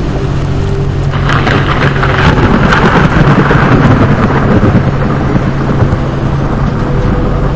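Vehicle engine and road noise, steady, with a loud rushing, crackling noise that swells about a second in and fades away after about four seconds.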